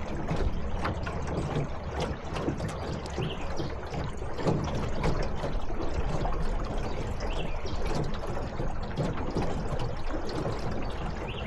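Water trickling and sloshing around a small boat, over a low steady hum.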